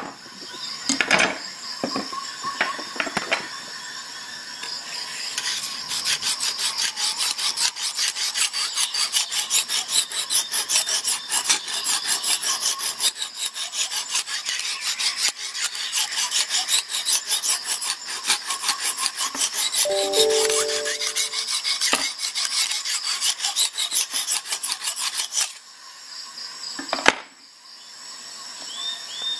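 Lansky guided-rod hone stroked quickly and repeatedly along a clamped knife edge: a steady run of stone-on-steel scraping strokes that starts about five seconds in and stops a few seconds before the end. A few handling clicks come before the strokes, and a single sharp knock comes near the end.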